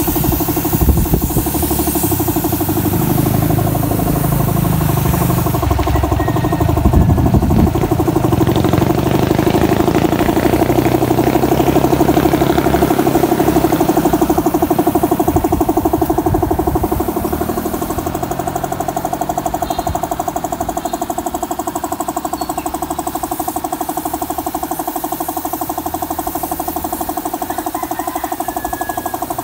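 Air compressor running steadily to feed a spray gun. The spray gun's hiss of air is heard for the first several seconds.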